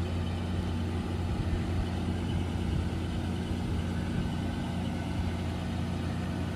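1994 Toyota Land Cruiser 80 series engine idling steadily.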